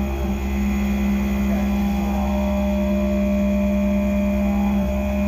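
Skyfire SVM-2 CNC vertical mill milling an aluminium block under flood coolant: a steady cutting tone with several held pitches over the hiss of coolant spray and flying chips.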